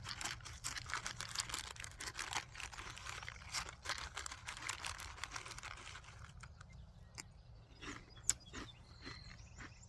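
Plastic cereal-bag liner crinkling and Frosted Flakes rustling as a spoon stirs them with almond milk inside the box: a dense run of small crackles for about six seconds, then a few scattered clicks.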